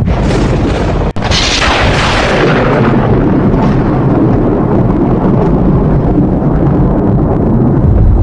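Thunder: a sharp thunderclap about a second in that fades into a long rolling rumble, over continuous heavy low rumbling.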